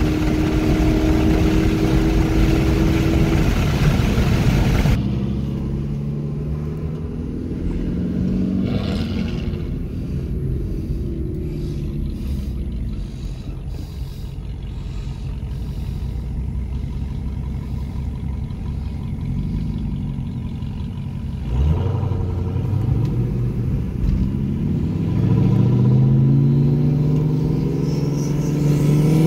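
Steady road and wind noise with a constant hum, then, after a cut about five seconds in, road rumble and engine drone heard inside a car's cabin. Near the end, engines rise sharply in pitch as they accelerate hard.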